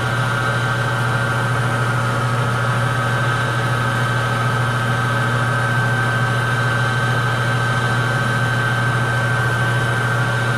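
Metal lathe running steadily with a constant motor hum and a steady high whine, during a light facing cut on the end of a drive shaft that takes off about a thousandth of an inch.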